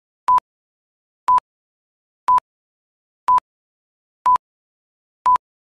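Short electronic beeps on one steady pitch, one each second, six times, with dead silence between.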